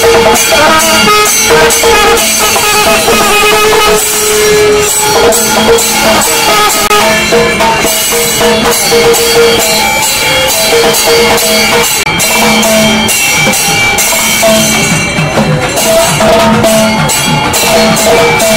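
Music with rapid, busy drumming under held melody notes.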